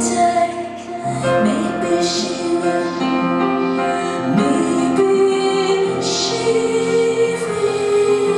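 Live piano-and-voice music: a woman sings held, slow notes over sustained piano chords.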